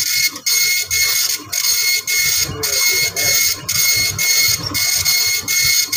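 Epson LQ-2190 24-pin dot matrix printer printing a test page: a loud, high-pitched buzzing of the print head as it strikes across each line, broken by a brief pause about once a second at each line's end.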